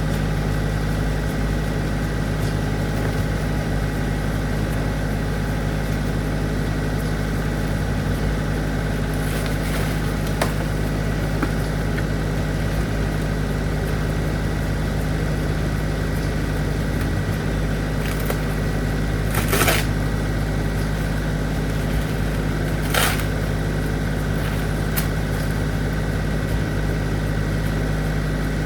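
An engine running steadily at idle, with a few brief knocks; the loudest two come about two-thirds of the way through.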